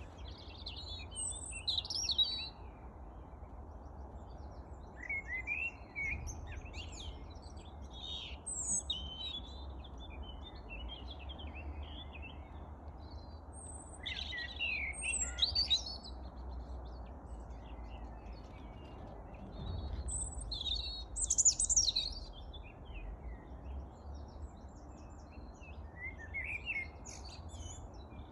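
Songbirds chirping and singing in short, high phrases every few seconds, loudest around the middle and about two thirds of the way through, over a steady low rumble.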